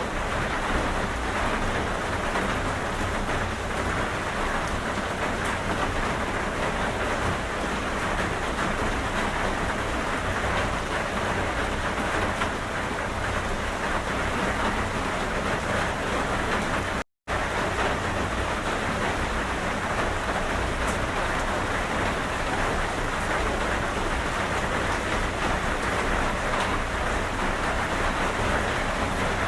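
Steady rain falling in a constant hiss with a low rumble underneath. The sound cuts out completely for a split second a little past halfway, then resumes unchanged.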